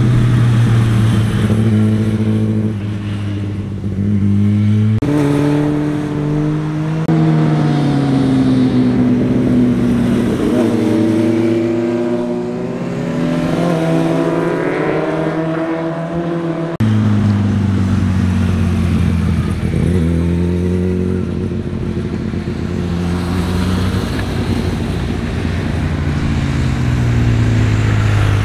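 Sport motorcycle engines passing one after another, each rising and falling in pitch with gear changes as the bikes lean through the bend and accelerate away. The sound switches abruptly to a new bike about five and seventeen seconds in.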